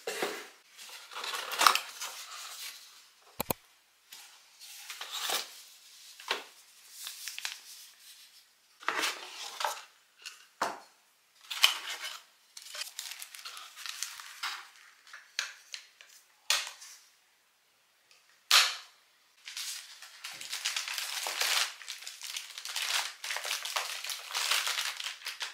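Cardboard box and paper packaging being opened and handled: irregular rustling and scraping with a few sharp clicks, the loudest about 18 seconds in, and a longer stretch of rustling near the end.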